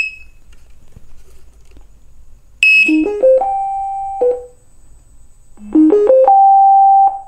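Startup tunes of two Gotway Nikola electric unicycles played through their built-in speakers, one after the other. Each is a quick climb of electronic notes ending on a held top note. The second wheel's tune, near the end, is louder and ear piercing.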